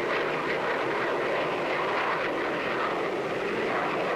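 Steady jet aircraft engine noise, a dense rush without a clear pitch.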